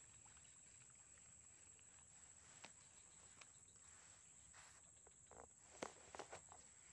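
Near silence, with a faint, steady, high-pitched insect drone. A few faint clicks and rustles come in the last second or two.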